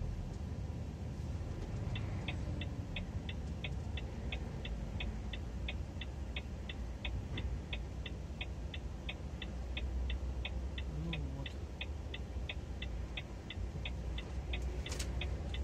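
Indicator relay ticking steadily in a truck cab, about three clicks a second, starting about two seconds in, over the low rumble of the truck's engine. A short hiss comes near the end.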